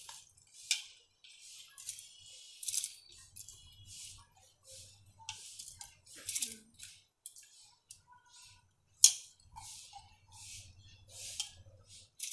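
A hand scooping and squeezing soaked rice grains in a plastic bowl of water, making short, irregular bursts of wet, gritty handling noise, about one or two a second. One sharper, louder knock or click comes about nine seconds in.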